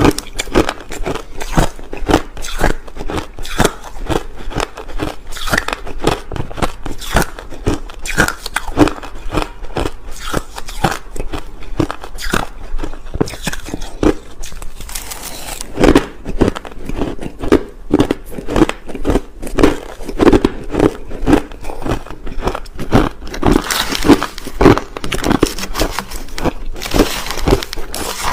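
Crushed ice being bitten and chewed close to the microphone: rapid, steady crunching and crackling, about two or three bites a second, with a denser burst of crunching near the end.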